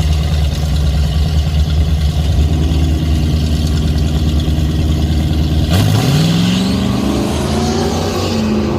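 A drag car's engine idling with a deep, lumpy rumble; about six seconds in it is given throttle and revs up, its pitch climbing steadily for a couple of seconds.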